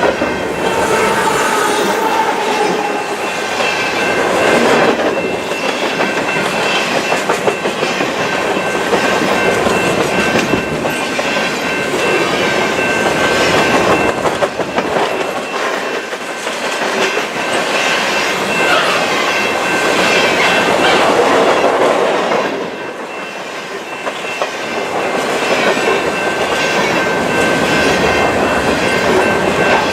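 Freight train of grain cars rolling past, the wheels clicking over the rail joints in a rhythmic clickety-clack, with a thin steady squeal from the wheels running underneath. It goes briefly quieter about three-quarters of the way through.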